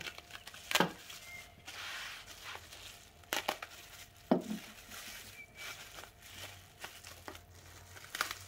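Bubble wrap crinkling and packing tape being cut and torn as a parcel is opened by hand, with several sharp clicks and knocks scattered through it.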